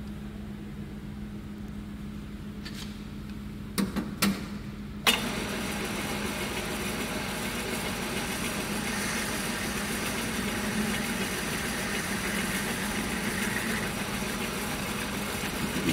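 Centre lathe running with a steady motor hum. A few sharp knocks come about four to five seconds in, then the tool cuts into the turning metal bar with a continuous hissing, scraping noise, turning a step down in diameter.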